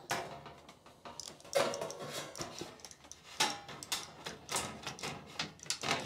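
Hand aviation snips cutting sheet metal, a string of uneven crunching snips as the blades close through the metal, strongest about one and a half, three and a half, four and a half and five seconds in.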